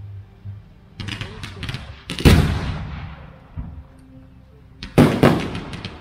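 Aerial fireworks shells bursting: a quick run of sharp cracks about a second in, a heavy burst with a long rumbling tail just after two seconds, and another loud burst followed by a cluster of crackles near the end.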